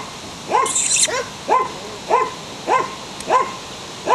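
Belgian Shepherd puppy barking in a steady string of short, high yelps, about seven evenly spaced ones, each rising and falling in pitch.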